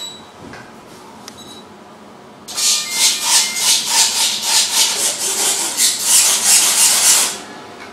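Radio-controlled model's servos whirring in quick repeated rasping bursts, about two or three a second, as the transmitter sticks are worked to check the radio link. Two short faint beeps come before the bursts.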